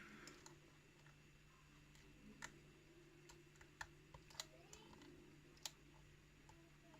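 Faint, irregular small clicks of a lock pick and tension wrench working the pins inside a lock core, about seven ticks spread unevenly. Underneath is a faint steady hum.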